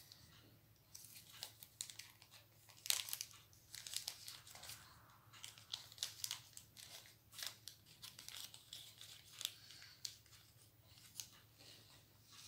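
Faint crinkling of a small plastic bag of diamond-painting rhinestones being opened and emptied into a plastic storage box, with many light clicks and rattles from the tiny stones and the box's compartment lids.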